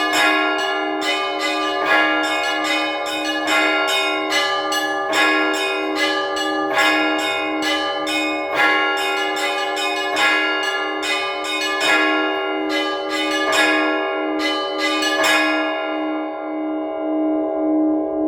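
Orthodox church bells rung in a trezvon peal: quick, overlapping strokes of the smaller bells over the steady hum of a larger bell. About fifteen seconds in the strokes stop and the bells ring out and fade.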